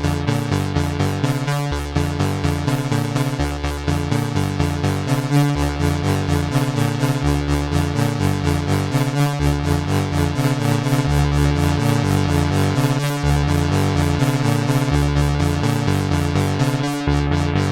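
Behringer analog synthesizer playing a sequenced pattern: a fast, steady run of short repeating notes over a low part that steps between a few pitches.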